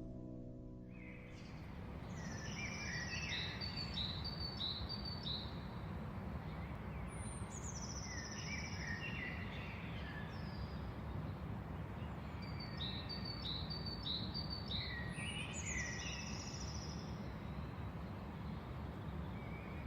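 A songbird singing three bouts of quick chirping phrases, each a run of short notes stepping down in pitch, over a steady low background hum.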